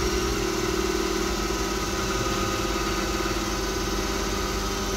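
2 HP DC motor on a thyristor drive, coupled to a tacho-generator, running steadily near 1000 rpm with a hum of several steady tones while its speed is turned down to the 1000 rpm set point.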